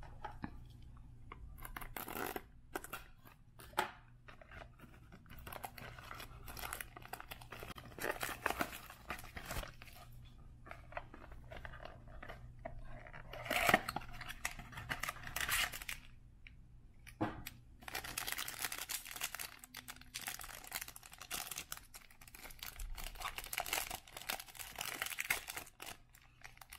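A sealed trading-card pack being torn open by hand: scattered ripping and scraping, one sharp tear about halfway through, then steady crinkling of the wrapper through the last third.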